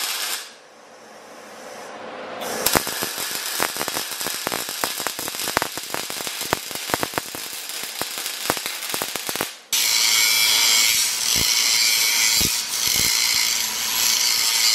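A wire-feed welder's arc crackling in a fast, irregular run of sharp pops for about seven seconds. From about ten seconds in, a DeWalt angle grinder with a cut-off wheel cuts steel pipe with a steady, loud, high-pitched grinding.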